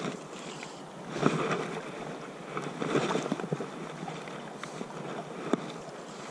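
Shallow river water rushing and lapping close to the microphone, with wind on the microphone and a few louder splashes and knocks.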